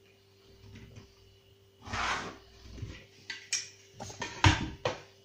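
Handling sounds of a spirit level and pencil worked against a steel door: a short rush of noise about two seconds in, then a handful of sharp knocks and taps, the loudest about four and a half seconds in.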